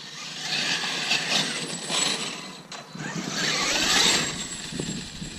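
Traxxas X-Maxx RC monster truck on oversized 1/5-scale tires driving past, a rough rumbling tire-and-drivetrain noise that swells and fades several times. It sounds like a tank going by.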